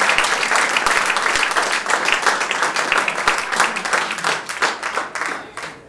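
Audience applauding: dense, steady hand clapping that thins out and dies away near the end.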